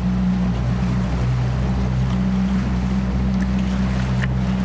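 Small fishing boat's motor running steadily at slow speed, a low even hum, with water and wind noise over it.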